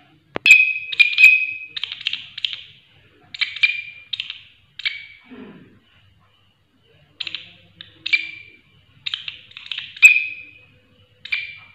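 Large green leaf-winged katydid (bush cricket) stridulating: loud, short rasping chirps in irregular groups of one to several, with pauses between.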